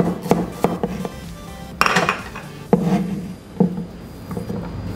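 Chef's knife chopping shallots on a wooden cutting board: a quick run of knocks at first, then single strikes about a second apart, over background music.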